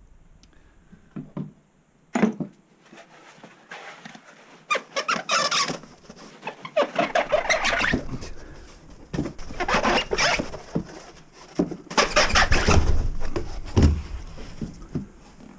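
White foam packing blocks being pulled and shifted out of a shipping box, squeaking and scraping in several irregular bursts as the foam rubs against itself and the cardboard.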